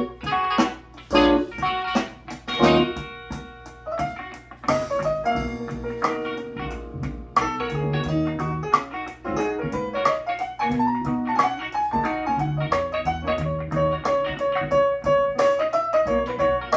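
Jazzy instrumental music with guitar and keyboard over a steady beat, played through a pair of 1970s Ultralinear M15 two-way bookshelf speakers with a 4.5-inch woofer and a 1-inch tweeter. The speakers are light on bass, which the owner puts down to their small woofers.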